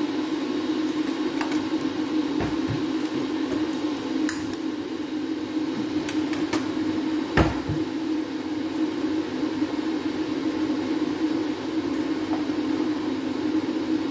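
Gas stove burner being lit under a saucepan: several sharp clicks, with a louder knock about seven seconds in, over a steady hum.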